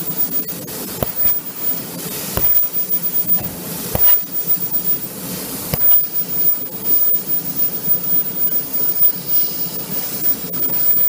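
Laser cutter working a black ABS sheet: a steady hiss of air blowing from the cutting head's air-assist nozzle, broken by a few sharp ticks.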